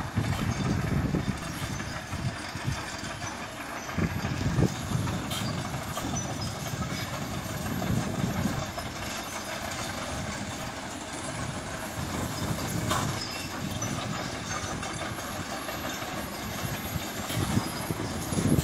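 Truck coming slowly down a steep paved hill: a low engine rumble that swells and fades unevenly.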